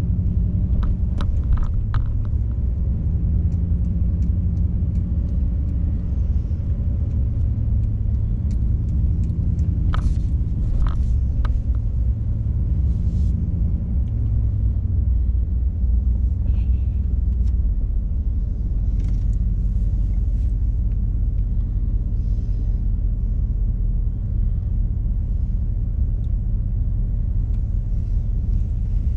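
Steady low rumble of a car driving slowly, its engine and road noise heard from inside the cabin, with a few light clicks near the start and about ten seconds in.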